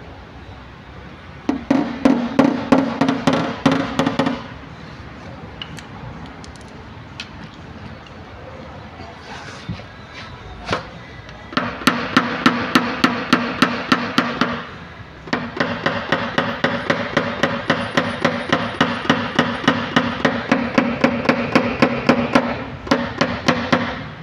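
Paintless dent repair: a small dent hammer tapping a knockdown tool held against a car's sheet-metal body panel. The taps are quick and light, about six a second, each with a short ringing tone. They come in three runs: a short one a couple of seconds in, then two long runs in the second half with a brief pause between them. The taps knock down raised metal around the dent to level the panel.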